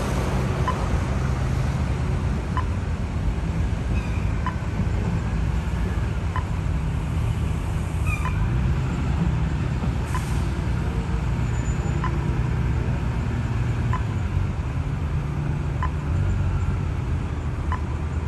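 Heavy vehicle engine running steadily with a low rumble, and a short faint beep or tick about once a second.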